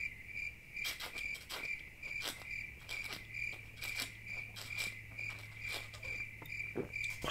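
Cricket chirping: a high chirp repeating about three times a second, with faint clicks in between, stopping abruptly near the end.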